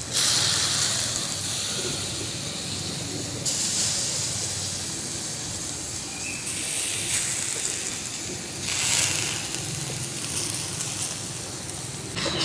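Pig intestine grilling over charcoal, sizzling and hissing as juices and chilli sauce drip onto the hot coals. The hiss steps up and down abruptly a few times.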